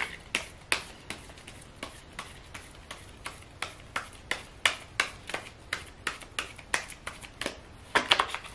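A deck of tarot cards being shuffled from hand to hand: a run of light card slaps and clicks, about three a second, with a quicker flurry near the end as a card is drawn out.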